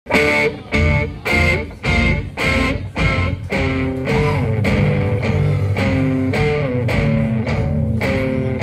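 Guitar-driven rock music. Chords are struck sharply about twice a second for the first few seconds, then the playing runs on more smoothly.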